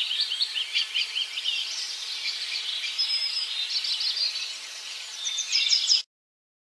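Many small birds chirping together in a dense chorus of short, quick, high chirps over a steady hiss, which cuts off suddenly near the end.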